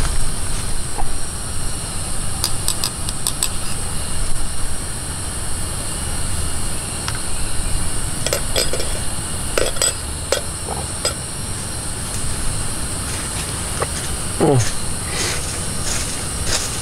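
A spoon stirring soup in a metal camping pot on a portable butane gas stove, clinking against the pot in small clusters, over the stove's steady low rumble. A short falling squeak comes about fourteen seconds in.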